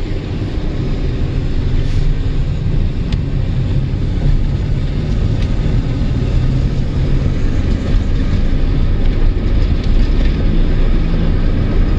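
Inside the cab of a Chevrolet S-10 pickup on the move: steady road and drivetrain noise with a low drone, heard through a hole in the floor. The driver takes the drone for a worn driver's-side front wheel bearing.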